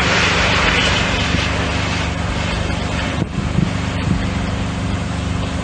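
A truck's engine idling steadily under a broad rushing noise of wind and distant burning, the rush easing a little after about two seconds.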